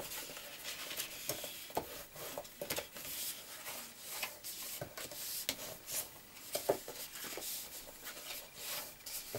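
Brown cardstock rubbing and scraping as its scored fold lines are burnished and creased, in short irregular strokes with a few light taps and paper rustles.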